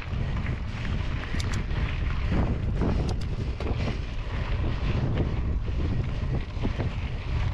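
Wind buffeting the camera microphone over the rumble of mountain bike tyres rolling on a gravel road, with a few sharp ticks around one and a half and three seconds in.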